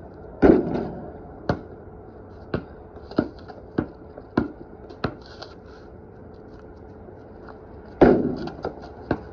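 Basketball bouncing on a concrete court, a dribble about every 0.6 seconds, between two loud ringing clangs of the ball striking the hoop, about half a second in and again near the end.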